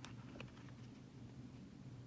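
Near silence: room tone with a steady low hum and two faint clicks in the first half second.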